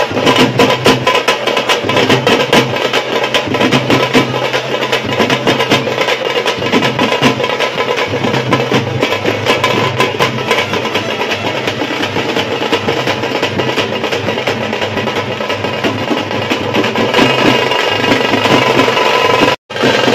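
Live festival drumming: a troupe beating large barrel drums together in a fast, dense rhythm. The sound cuts out for an instant near the end.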